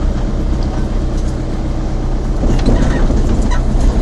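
Vehicle engine running steadily with road noise, heard from inside the cabin while driving slowly.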